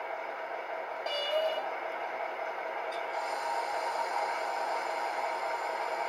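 Model-train sound decoder in an H0 SVT 18.16 diesel multiple unit playing the standing diesel-engine sound through the model's small loudspeaker: a steady running noise. A brief higher tone comes about a second in, and a click about three seconds in.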